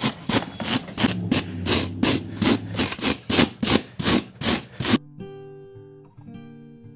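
A curry comb scraping a styrofoam block in quick back-and-forth strokes, about four a second, rasping the foam into a rounded shape. The scraping cuts off suddenly about five seconds in and music of plucked guitar-like notes follows.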